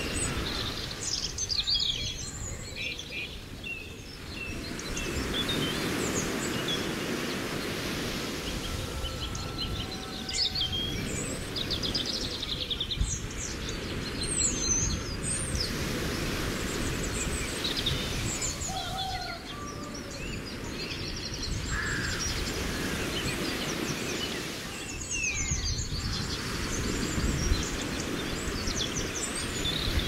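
Several wild birds singing and calling in short chirps and trills, over a steady low rushing background noise.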